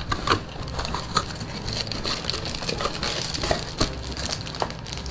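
Packaging being handled and opened by hand: irregular crinkling, rustling and small knocks as the next item is taken out of a mystery box.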